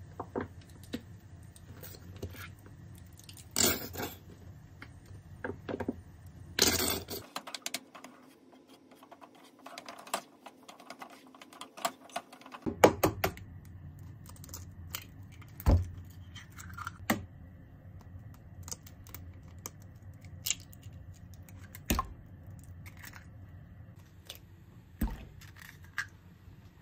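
Kitchen handling sounds: ketchup squeezed from a squeeze bottle onto fried rice in a frying pan, with noisy bursts in the first few seconds. Then eggs are cracked into a mixing bowl, a handful of sharp knocks several seconds apart.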